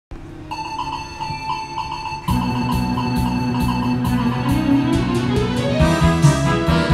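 Instrumental music: a quiet keyboard intro with a pulsing figure, then about two seconds in a fuller, louder arrangement with a steady beat comes in, its melody climbing.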